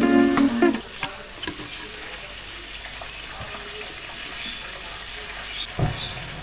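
Coated fish pieces sizzling steadily as they shallow-fry in hot oil, stirred and turned with spatulas in the pan. A single thump near the end. Acoustic guitar music fades out about a second in.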